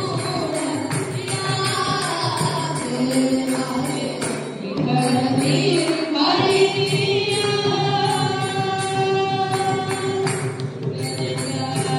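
A group singing together, with hand claps and jingling percussion keeping a steady beat about twice a second.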